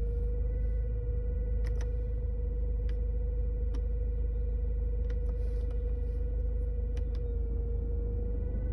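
A steady high-pitched whine from the fuel filter housing of a Hyundai i30 1.6 CRDi diesel, heard inside the cabin over the idling engine. The tone holds steady, dips slightly near the end, and does not change as dashboard buttons click a few times. It is a fault sign: a failing fuel filter housing, which a new housing and filter cured.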